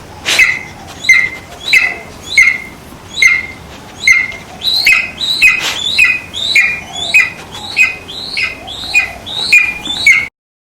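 A rapid series of high-pitched squeaky chirps, about one and a half a second, each dropping sharply in pitch and settling briefly on a held note. It cuts off suddenly near the end.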